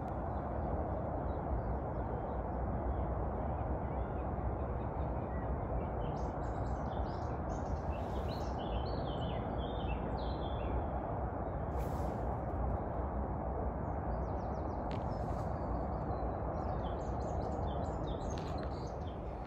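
Birds chirping in short, repeated calls, busiest around the middle and near the end, over a steady low outdoor rumble.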